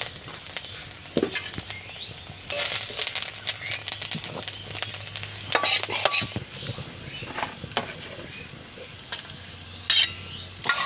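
Metal spatula scraping and clinking against an iron kadai and a steel bowl in irregular bursts, as dry-roasted black cumin is scraped out of the pan.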